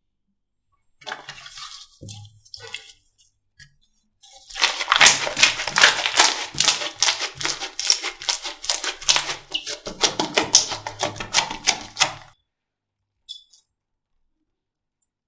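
Slime being squished and pressed by hand: a dense run of rapid wet pops and clicks, growing louder after a few seconds and stopping suddenly well before the end.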